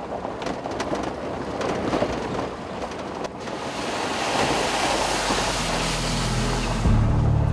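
A truck driving on a gravel road, heard from inside the cab: a steady rush of tyre and road noise with small crackles of gravel. About five seconds in, music with low bass notes comes in and grows louder.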